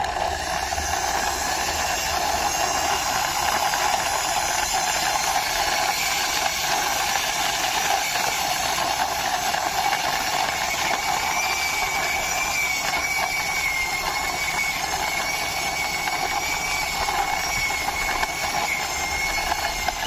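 Plastic toy car pushed slowly by hand along a rough concrete ledge, its wheels rolling with a steady hiss. A faint thin whine comes in about halfway through.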